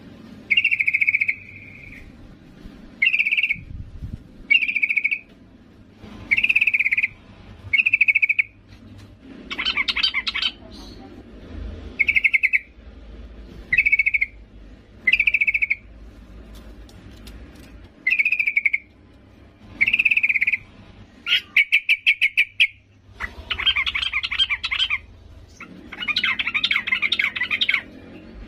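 Female yellow-vented bulbul (trucukan) calling for a male: short repeated calls about every one to two seconds, breaking into longer, harsher chattering runs in the second half.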